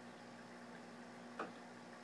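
Faint steady hum of running aquarium equipment, with one short sharp click about one and a half seconds in.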